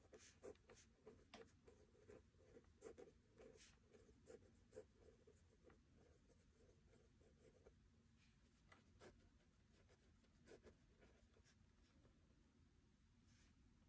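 Faint scratching of a pen writing on spiral-notebook paper. A close run of small strokes fills the first half, then the strokes come fewer and further apart.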